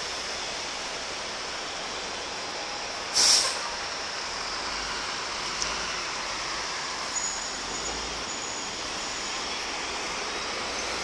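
Steady hum of road traffic below, with a short, loud hiss from a heavy vehicle's air brake about three seconds in.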